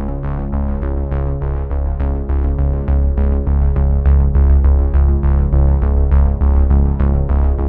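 Background music: an electronic synthesizer tune with a steady beat and heavy bass.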